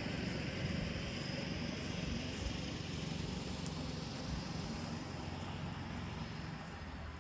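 Kubota L2800 compact tractor's three-cylinder diesel engine idling steadily, a little fainter near the end.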